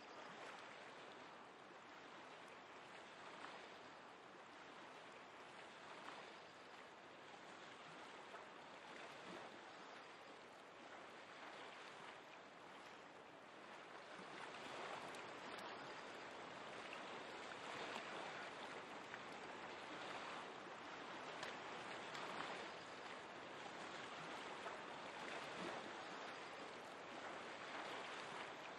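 Faint, steady rush of a river's flowing water, growing a little louder about halfway through.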